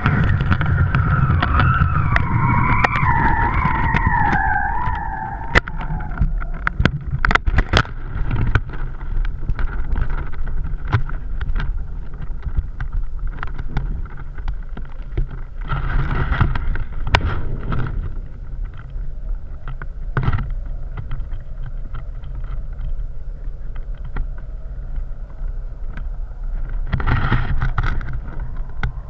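Wind buffeting the microphone of a kite-borne action camera: a steady low rumble with scattered sharp clicks and knocks. A wavering whistle-like tone is present in the first few seconds.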